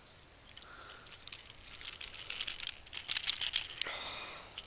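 Rustling and crackling of a freshly landed largemouth bass being handled and lifted from the grass, with a quick run of crackles about halfway through.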